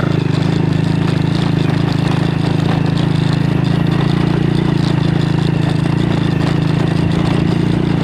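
Honda Grand motorcycle's small single-cylinder four-stroke engine running at a steady pitch while riding along a stony track.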